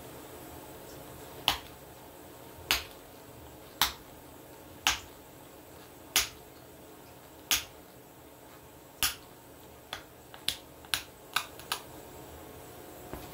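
Pressure flaking a knapped blade with a copper-tipped flaker: about a dozen sharp clicks as flakes pop off the edge, roughly one a second at first, then five in quicker succession near the end.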